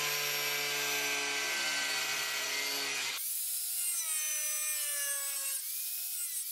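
Angle grinder scoring Hardie fiber-cement board: a steady motor whine, then about three seconds in the sound changes abruptly and the pitch wavers and sags as the disc is pushed along the board. The cut is a score line so the strip can be snapped off.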